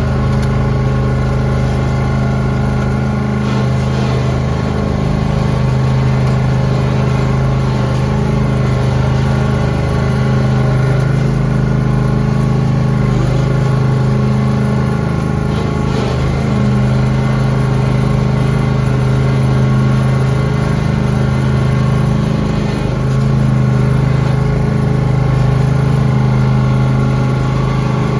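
Lawn tractor engine running steadily while plowing snow, its pitch dipping and recovering slightly now and then as the load changes.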